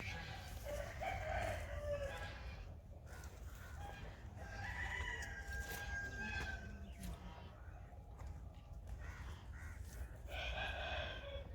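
Rooster crowing three times, each crow ending on a long held note, over a low steady rumble.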